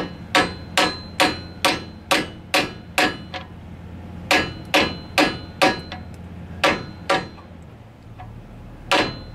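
Hammer striking a seal driver, tapping a new axle seal into a rear axle housing: a run of about nine sharp metallic taps at a little over two a second, then after a short pause four more, two more, and a last pair near the end.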